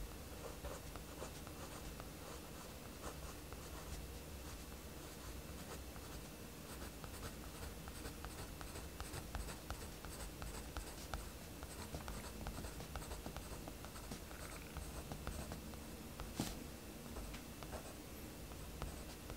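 Mechanical pencil scratching on sketchbook paper in many short, quick strokes while drawing fine line detail, with one sharper click about sixteen seconds in.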